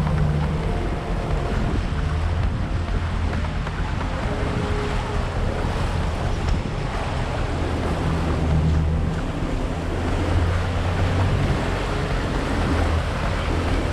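Ford Raptor pickup driving on a desert dirt trail: a steady low engine drone under a continuous rush of tyre and wind noise.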